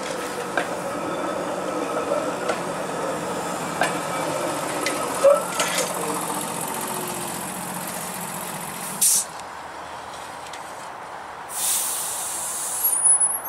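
TTC CLRV (Canadian Light Rail Vehicle) streetcar rolling slowly around the loop's curve at close range: a steady running hum from its motors and wheels, with sharp clacks as the wheels cross rail joints and switches. It gets quieter after about nine seconds as the car pulls away. A short hiss comes about nine seconds in, and more hissing near the end.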